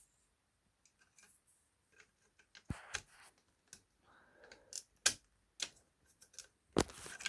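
Irregular sharp clicks and knocks of hard plastic being worked loose and pried out of a Bluetooth speaker's housing. The loudest snaps come near the middle and toward the end.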